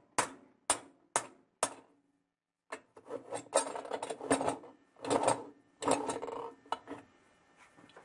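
Steel spanner wrench working a GE washer's spin-drum hub nut: four sharp metal clicks about half a second apart, then a few seconds of scraping and clinking as the left-hand-threaded nut is turned off the shaft.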